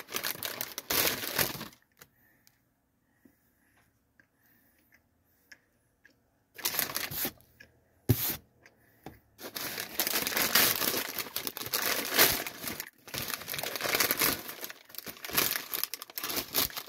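Packaging around a bakery cookie being crinkled and torn open by hand, in rustling bursts. There is a quiet stretch of a few seconds after the first burst, then longer, almost continuous crinkling through the second half.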